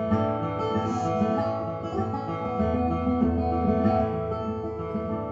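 Acoustic guitar playing the accompaniment of a folk song in a short instrumental gap between sung lines, with held, ringing chords.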